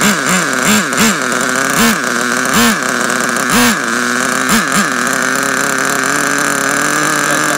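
Nitro glow engine of a Redcat Tornado S30 RC truck running just after starting. Its pitch surges up and down about twice a second, the surges slowing and spacing out, and about five seconds in it settles into a steady idle.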